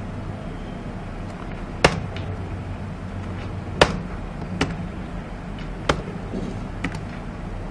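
Five scattered, sharp clicks of a computer keyboard and mouse, the two loudest about two and four seconds in, over a steady low hum.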